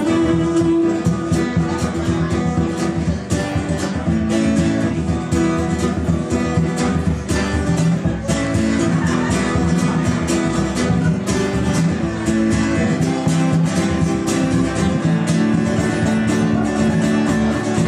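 Lively Scottish folk tune played live on fiddle, strummed acoustic guitar and bodhrán, with a steady driving beat.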